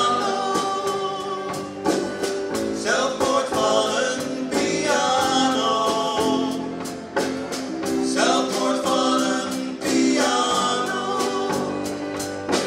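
Live band playing with a male lead singer holding long sung notes in Spanish, over acoustic guitar, electric bass and drums keeping a steady beat.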